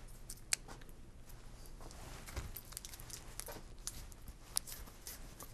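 Faint scattered taps and small clicks of a paintbrush being worked in paint on a palette, with two sharper ticks, one about half a second in and one near the end, over faint room hum.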